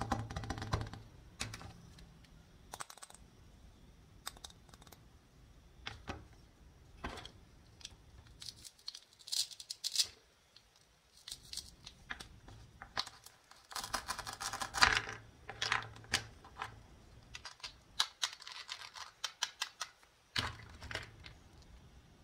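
Hard plastic toy play food clicking and tapping as the pieces are handled, pulled apart and set down on a wooden toy cutting board: scattered short clicks and knocks that come in clusters.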